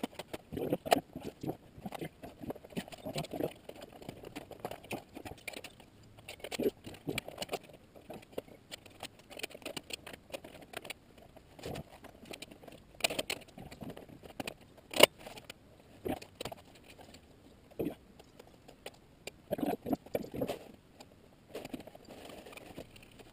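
Irregular metallic clinks, knocks and rattles as a Suzuki DR-Z125 dirt bike's rear wheel is handled and fitted into the swingarm, with one sharper knock about fifteen seconds in.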